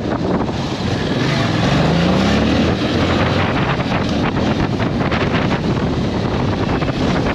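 Yamaha Tracer 7 motorcycle's 689 cc parallel-twin engine running under way, with wind rushing over the microphone. About a second and a half in, the engine note rises for about a second as the bike accelerates.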